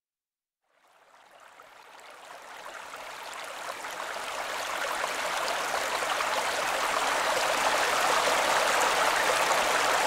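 Wavesequencer Theia software synthesizer playing its 'GentleRiver' ambience preset: a rushing-water noise texture. It fades in about a second in, swells gradually over several seconds, then holds steady.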